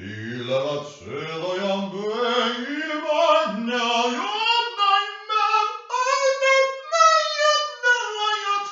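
A single voice singing wordless held notes, climbing from a low pitch to a high one over about six seconds, then falling again near the end.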